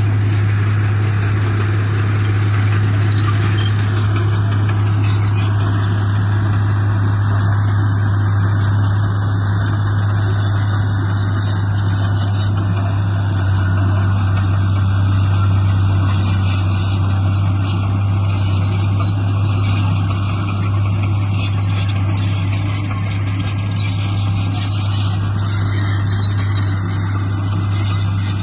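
Heavy diesel engine of earthmoving equipment running steadily, with a deep, even hum.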